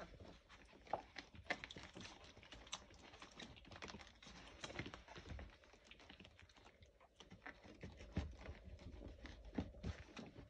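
Faint, irregular patter of small clicks and scratches: young Labrador puppies' paws and claws scrabbling on a puppy pad.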